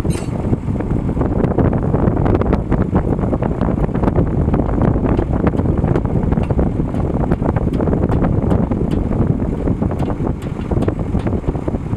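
Tractor running steadily, with frequent short rattles and clicks.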